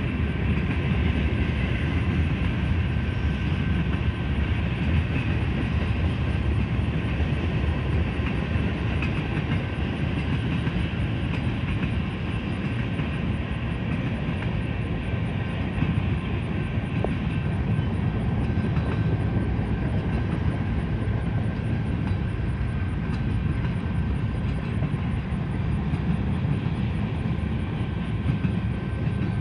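Train rolling past: a steady rumble of cars on the rails, with faint steady high-pitched tones above it.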